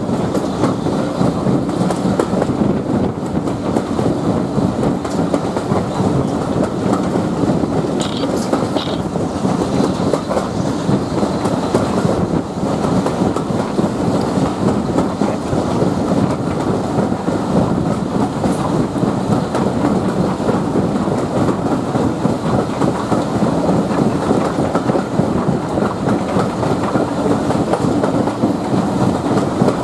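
Steam-hauled passenger train running along the line, heard from an open carriage window: a loud, steady rumble of wheels on the track mixed with rushing air.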